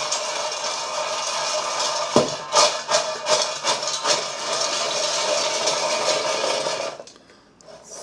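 French fries being tossed in the air fryer's bowl to mix in the seasoning, a continuous rattling and scraping with quick knocks against the bowl. It stops abruptly about 7 seconds in.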